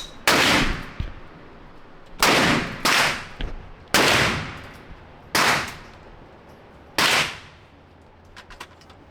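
Six gunshots fired one at a time, unevenly spaced over about seven seconds, each ringing out in a short echo, followed by a few faint clicks near the end.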